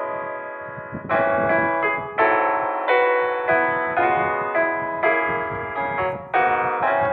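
Background music: electric piano playing sustained chords, a new chord struck about once a second and fading away.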